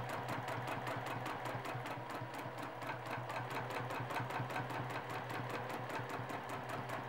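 Sewing machine running steadily for free-motion quilting, stitching straight lines with the feed dogs dropped: a motor hum under a rapid, even ticking of the needle strokes.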